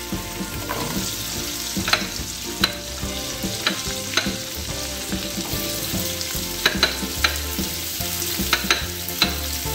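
Melted butter foaming and sizzling in a hot nonstick wok, with scattered sharp pops and crackles; raisins fry in the butter.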